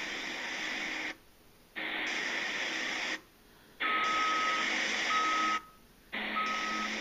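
Heavy earth-moving machinery running with a steady engine hum and hiss. From about four seconds in, a reversing alarm beeps about once a second. The sound cuts out completely three times, each for about half a second.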